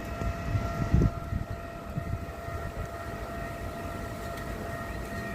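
Railway level-crossing warning alarm sounding an unusual steady electronic tone, several pitches held together without a break, over a low rumble that swells briefly about a second in.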